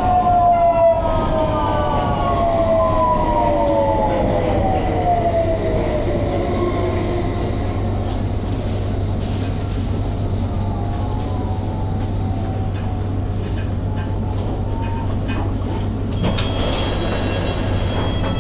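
London Underground Hammersmith & City line train heard from inside the carriage, its traction motor whine falling steadily in pitch over the first seven seconds as the train slows, over a steady low hum. Scattered clicks and rattles follow, and a high steady tone comes in near the end.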